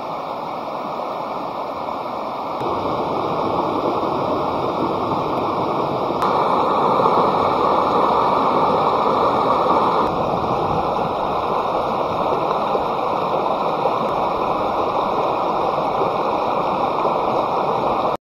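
Steady rushing of a mountain river's flowing water, getting louder in steps a few seconds in and easing a little past the middle, then cutting off abruptly near the end.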